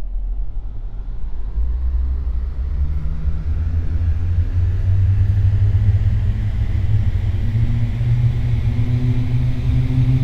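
Ceiling fan starting up and gathering speed: a loud low rumble of moving air with a motor hum that climbs slowly in pitch as it builds.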